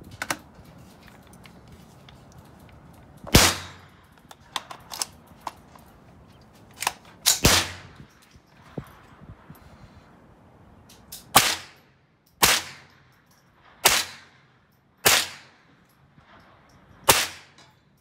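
Tippmann M4-22 semi-automatic .22 LR rifle firing Aguila Super Extra rounds: about seven sharp single shots, four seconds apart at first, then one every second or two near the end, each trailing off briefly. Fainter cracks come between the early shots.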